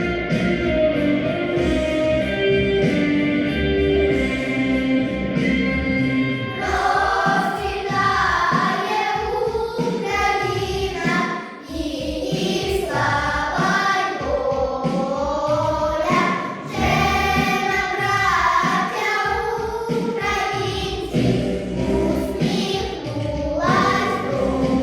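Instrumental backing music; about six and a half seconds in, a choir of high children's voices comes in singing a song over it.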